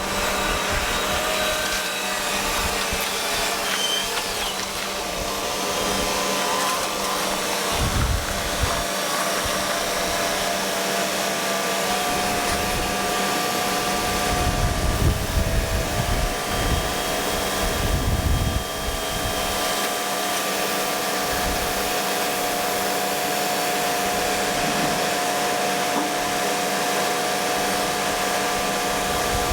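John Deere T670i combine harvester running steadily: a loud whooshing machine whine over a steady hum, its pitch rising a little about twelve seconds in, with a few low thuds and rumbles between about eight and nineteen seconds in.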